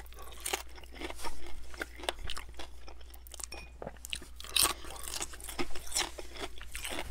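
Crispy bacon being bitten and chewed: an irregular run of crunches and crackles.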